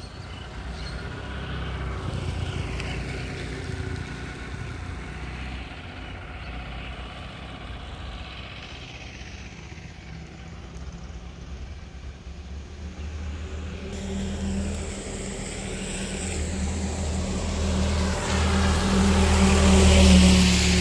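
Motor vehicles passing on a rain-wet road: a continuous engine rumble that builds to its loudest near the end, with tyre hiss rising as it comes.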